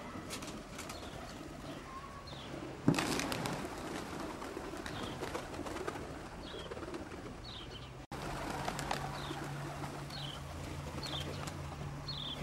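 Pigeons cooing, with short, falling high chirps repeating throughout. A sharp knock about three seconds in is the loudest sound.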